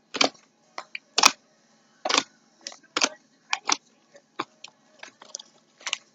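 Homemade glitter-glue slime being squeezed and kneaded by hand, giving irregular sticky clicks and pops, roughly two or three a second.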